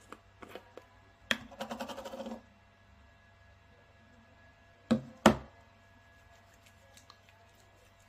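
Plastic screw lid of a tub of body cream being twisted off: a sharp click, then a run of rapid clicking for about a second. A few seconds later come two sharp knocks, close together.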